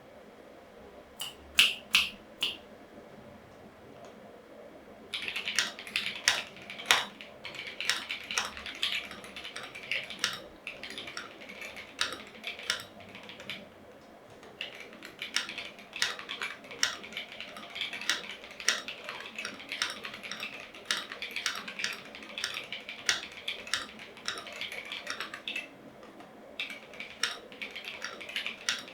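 Typing on an Akko 5075s plastic-cased, gasket-mounted 75% mechanical keyboard with factory-lubed Akko Piano switches and XDA PBT keycaps. A few keystrokes come in the first couple of seconds, then steady, fast typing starts about five seconds in and runs on with a short pause near the end.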